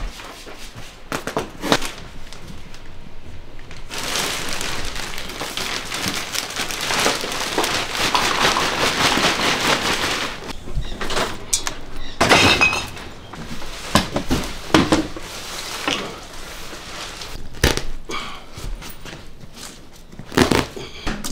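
Clatter of debris being cleared out: scattered knocks and thuds, several seconds of steady rough scraping noise, then irregular crashes and crunching as debris goes into trash bags.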